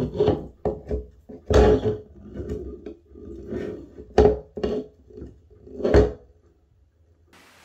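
Drain pipe fittings knocking and scraping against a shower tray and its drain opening as they are handled. A string of irregular knocks, the loudest about one and a half, four and six seconds in.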